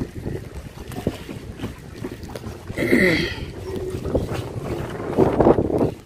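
Wind buffeting the microphone over the water noise of a small boat moving under a concrete bridge, with scattered knocks. About halfway through, a brief gliding cry rises and falls, and the noise grows louder shortly before the end.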